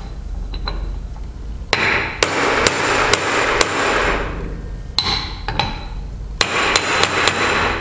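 Hammer strikes on a seal driver, driving a new SKF lip seal into the bearing cap of a Berkeley jet pump. There are two runs of about five sharp blows each, the first starting near two seconds in and the second near the end.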